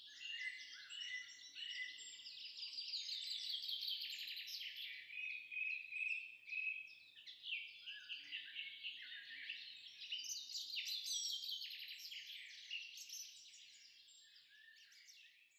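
A dense chorus of many birds chirping and singing at once, with short overlapping notes. It fades out near the end.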